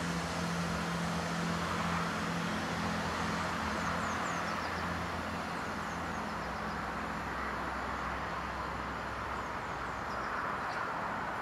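Diesel multiple unit train running away down the line: a steady low engine hum that fades over a wide rushing noise. A few small birds chirp faintly a few seconds in and again near the end.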